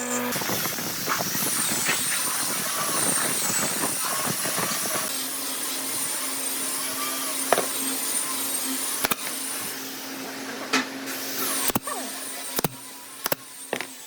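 Woodworking shop noise: a steady hiss, then a low hum, with several sharp knocks of tools or wood in the last few seconds.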